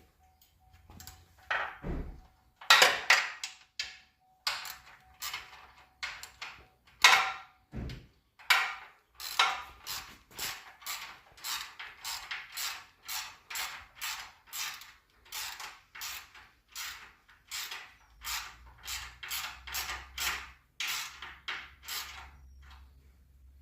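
Hand tools on front sway bar link and bushing hardware: two heavier knocks, then a long run of quick, even metallic tool strokes, about two a second.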